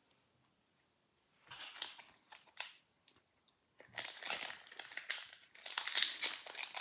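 Crinkling and crackling of a foil booster-pack wrapper being handled. It starts with a few short crackles about a second and a half in and turns to denser, louder crinkling from about four seconds in.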